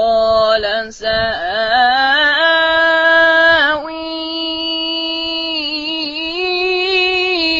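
A child's voice reciting the Quran in melodic tajweed style, drawing out long held notes with slow wavering ornaments. There is a brief pause for breath about a second in.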